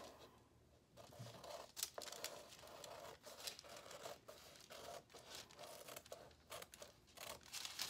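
Large dressmaker's shears cutting through a paper pattern: a faint run of short snips, starting about a second in and coming irregularly, about one or two a second.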